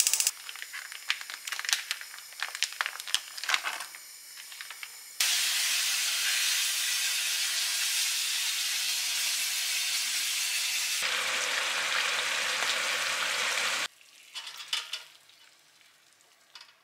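Sliced smoked duck frying in a nonstick pan on a gas stove: crackling and popping at first, then a loud steady sizzle that starts suddenly about five seconds in and cuts off sharply about three seconds before the end. A few light clicks follow near the end.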